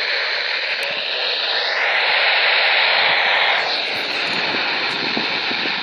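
Loud, steady static hiss from a TV speaker tuned to a channel with weak or no signal, with faint tones gliding up and down through it.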